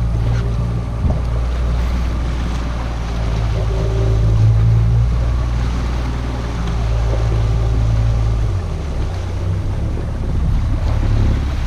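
A boat engine running at trolling speed, a steady low drone, with water rushing past the hull. The engine note shifts slightly about eight and a half seconds in.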